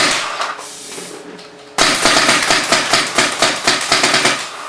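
Twin pneumatic paintball markers on a home-built turret firing: a short burst right at the start, then rapid fire from about two seconds in, a fast string of sharp cracks that runs until near the end.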